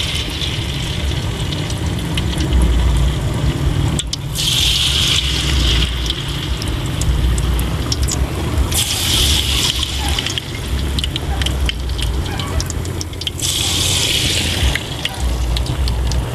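Battered eggplant slices deep-frying in oil in a wok, sizzling and crackling, with a louder surge of sizzle each time a fresh slice goes into the oil, four times. A steady low rumble runs underneath.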